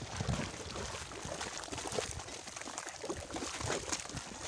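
Wet mud slurry sloshing and splattering, with many small wet slaps and crackles.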